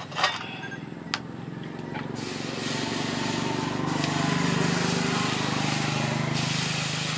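Liquid poured over a hot steel axe head cut from a tractor plough disc, sizzling with a steady hiss as it quenches. The hiss starts about two seconds in and cuts off shortly before the end. Before it come a sharp knock just after the start and a fainter one about a second in.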